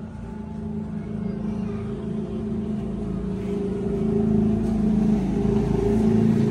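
A machine running with a steady low hum, growing gradually louder.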